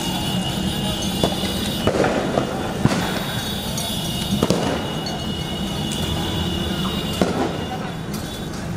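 Four sharp bangs spread over the span, above a steady loud din of street noise.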